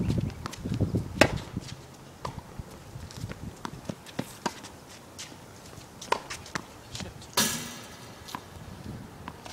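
Tennis ball pops from racket strikes and bounces on an outdoor hard court during a rally: a serve, a sharper, louder return about a second in, then a scattering of lighter pops. A louder, short rattling noise comes near the end.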